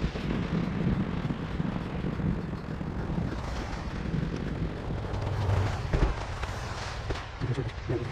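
Rumbling ride noise and wind buffeting on the microphone as a fat bike rides through deep snow, with a couple of sharp knocks near the end.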